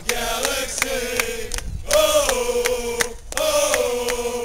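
Football supporters marching and chanting in unison, with hand claps, in sung phrases broken by two brief pauses.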